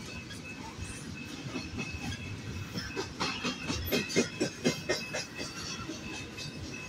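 Double-stack intermodal freight cars rolling past, steel wheels clacking over the rail joints. A quick run of loud clacks about three to five seconds in marks a set of wheel trucks crossing the joint.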